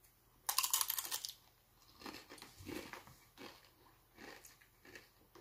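A Doritos tortilla chip crunching loudly as it is bitten into, followed by about five shorter crunches as it is chewed.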